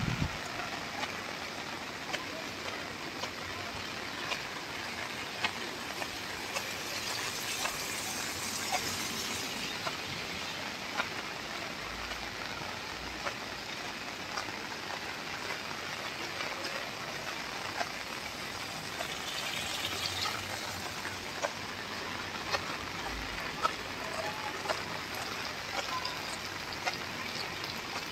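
Steady rain falling on wet pavement: an even hiss dotted with sharp ticks of single drops. The hiss swells twice along the way.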